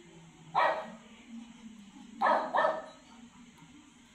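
A dog barking: one bark about half a second in, then two quick barks a little past two seconds in.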